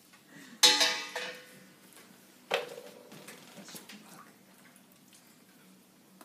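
Two metallic clatters with a short ringing tail, about a second in and again about two and a half seconds in: a metal hand-held gas torch being set down.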